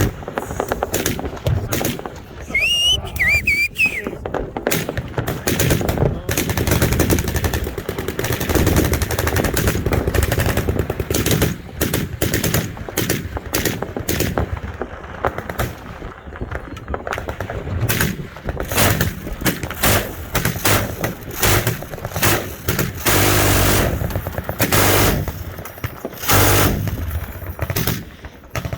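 Machine-gun fire: repeated bursts of automatic fire and single shots, overlapping one another, heaviest in the last few seconds.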